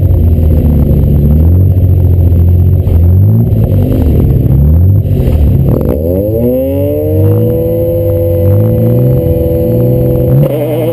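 A car's engine heard from inside the cabin, pulling hard with its pitch climbing and dropping back at gear changes. About six seconds in the revs fall away and it settles to a steady cruise.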